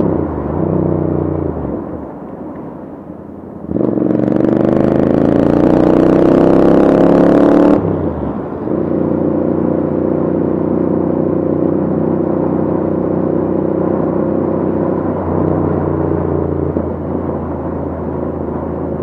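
Royal Enfield 650 parallel-twin engine through an aftermarket Diablo exhaust. It dies down as the throttle closes, revs up with a rising pitch from about four seconds in to about eight, drops off sharply, then runs at a steady pitch for the rest.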